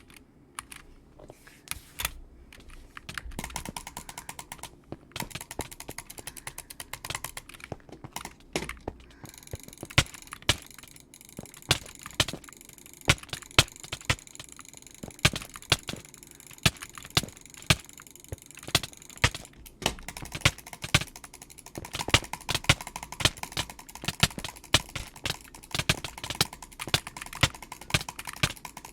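Computer mouse buttons clicking over and over at an uneven pace: louder sharp clicks roughly once or twice a second among many lighter clicks.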